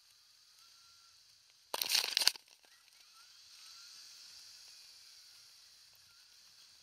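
Ride on a Kugoo G Booster electric scooter: a faint steady hiss of wind and tyres on asphalt. About two seconds in, a loud crackling clatter cuts in for about half a second.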